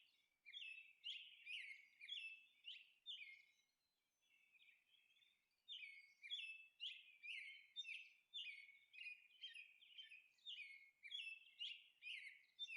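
Faint bird chirping: a quick series of short, downward-sliding chirps, two or three a second, with a pause of about two seconds a few seconds in.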